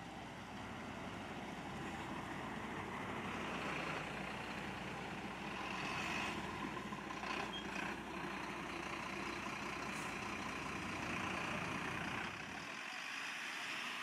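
Fire engines driving past on an emergency run: truck engines and tyre noise swell as the vehicles approach and pass. The low rumble cuts off abruptly shortly before the end.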